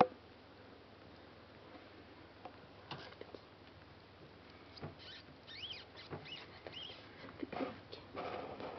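A few short, high squeaks from newborn rat pups in the nest, a little past the middle, among faint scratching and rustling in the paper-towel bedding.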